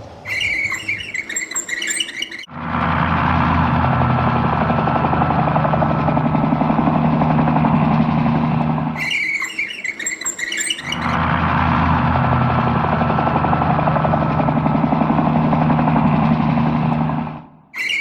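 A vehicle engine running steadily with an even low hum, heard twice for about six seconds each. Short stretches of drum music come between and before them.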